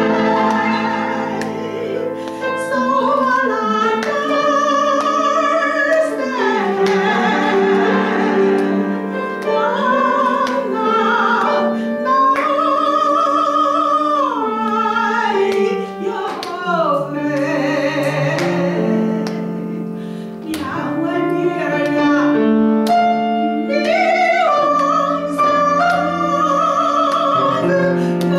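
A woman singing solo in a classical, operatic style with strong vibrato, accompanied by piano.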